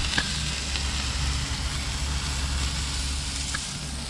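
Merganser and ring-necked duck breasts and hearts sizzling in butter on a Blackstone flat-top griddle. A steady hiss with a few small pops over a low rumble, easing slightly near the end.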